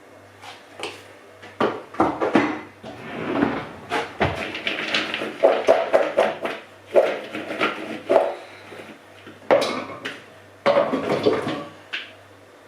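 Kitchen clatter: irregular knocks and clinks of dishes and utensils being handled, in bursts with short pauses.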